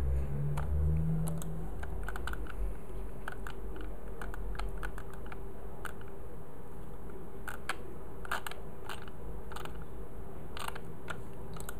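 Scattered, irregular clicks of a computer mouse and its scroll wheel, some in quick little runs, over a steady low hum.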